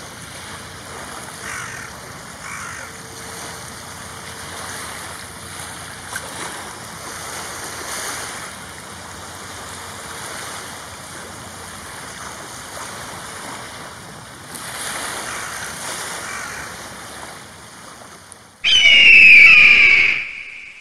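A crow cawing faintly now and then over a steady hiss. About 18 seconds in comes a loud, high, shrill eagle call lasting about a second and a half.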